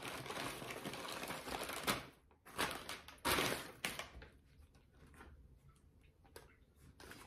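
Paper takeout bag rustling and crinkling as it is handled, with a few louder rustles in the first four seconds, then mostly quiet with a few faint clicks.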